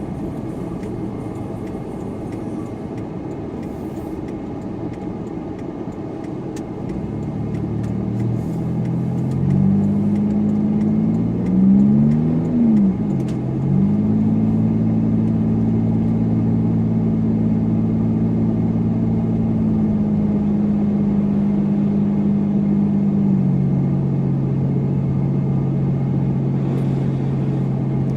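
A supercharged car's engine running under way over steady road noise. The engine note builds, rises and falls quickly about twelve seconds in, then holds a steady drone that steps down in pitch about twenty-three seconds in.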